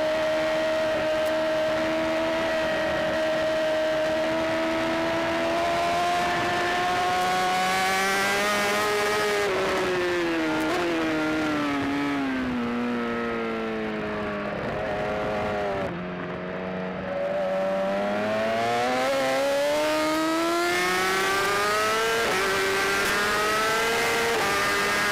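Racing superbike engine at high revs, heard from an onboard camera. The pitch climbs slowly, then falls in steps from about ten seconds in, as on braking and downshifting into a corner. It dips briefly in loudness, then climbs again under acceleration, with a drop in pitch near the end as on an upshift.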